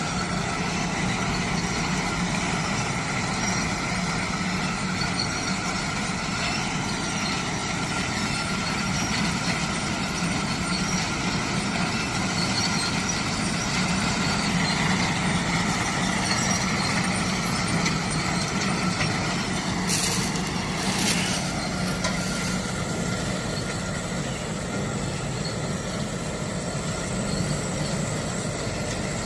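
Legume harvesting machine running steadily, a continuous mechanical drone over a low engine hum, with two brief hisses about two-thirds of the way in.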